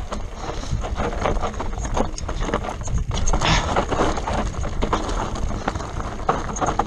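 Mountain bike descending a dry, rocky dirt singletrack: tyres scrubbing over dirt and stones, with a constant, irregular rattle and clatter of the bike over the bumps.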